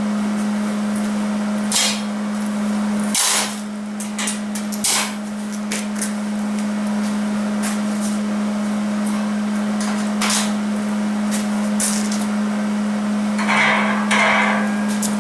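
Sharp metal knocks and clanks on steel square tubing, several seconds apart, over a steady low hum, with a short rough crackling stretch near the end.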